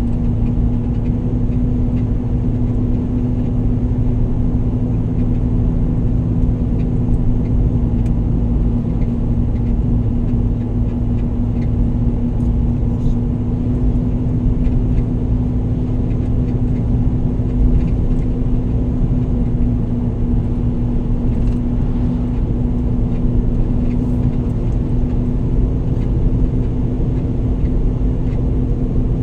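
Car driving along at a steady speed: engine and road rumble with an unchanging low hum.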